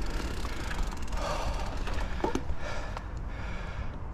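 A mountain biker breathing hard, with a couple of audible breaths, over a steady low rumble on the action camera's microphone and a few light clicks.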